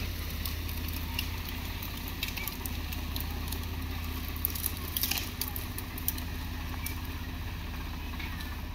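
Swaraj 742 XT tractor's diesel engine running steadily, with scattered crackles and clicks over it.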